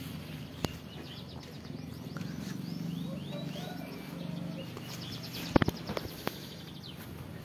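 Small songbirds chirping in quick repeated notes and a short trill over a low steady hum, with a few sharp knocks about five and a half seconds in.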